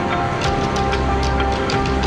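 Background music with held chords and a regular light beat.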